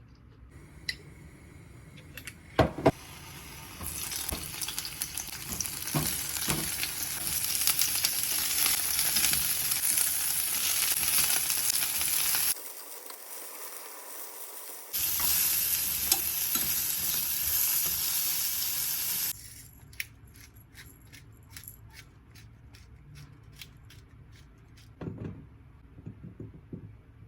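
Food sizzling as it fries in a pan: a loud hissing sizzle in two stretches, broken off abruptly between them, followed by scattered light clicks and taps of kitchen utensils.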